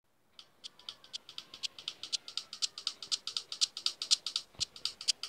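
A steady rhythm of sharp, dry rattling clicks, about four or five a second, starting faint and growing louder, with one deeper knock near the end: the percussive start of a music track.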